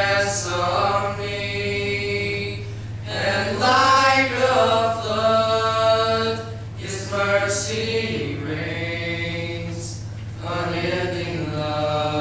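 A small group of young male voices singing a hymn together in harmony, unaccompanied, in long held phrases with short breaths between them. A steady low electrical hum runs underneath.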